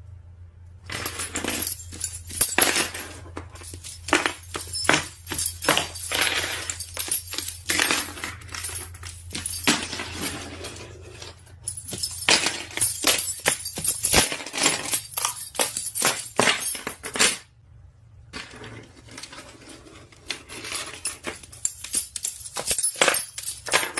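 Rapid, dense clinking and clattering of small hard objects, in long runs with a brief pause about three-quarters of the way through.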